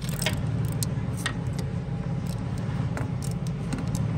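Hand ratchet clicking in short, irregular runs as it backs out the 10 mm 12-point bolts of a Cummins ISX fuel pump head, over a steady low hum.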